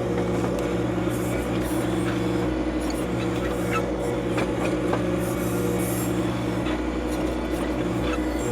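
John Deere 2025R compact tractor's three-cylinder diesel engine running steadily, with a few short clicks and knocks over it.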